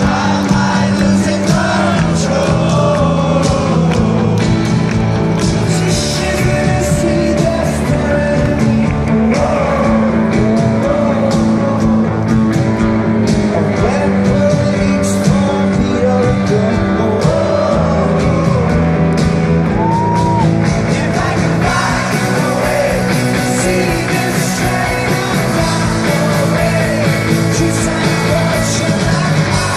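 Rock band playing live through a festival PA: a male singer over electric guitars, bass and drums with cymbals, loud and continuous.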